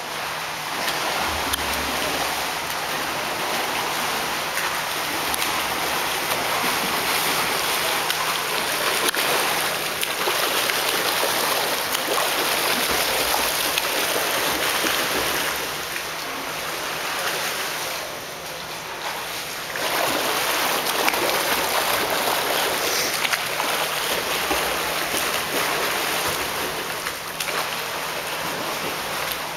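Water splashing and churning from a freestyle swimmer's kicks and arm strokes, steady and fairly loud, easing off briefly about two-thirds of the way through before picking up again.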